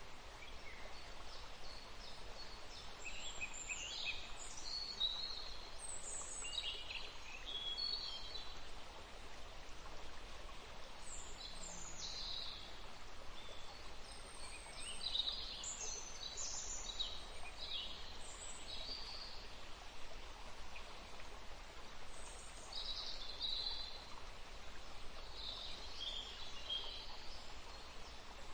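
Forest ambience: several birds chirping and calling on and off over a steady background hiss.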